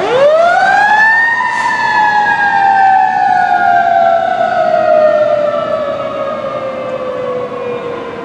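Fire engine siren giving a single wail: it rises sharply in pitch over about a second, then falls slowly and steadily as it winds down, getting a little quieter near the end.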